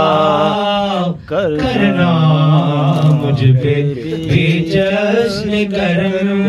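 A man singing long, wavering held notes into a microphone, amplified, with no clear words. The same singer had been singing Punjabi folk lyrics.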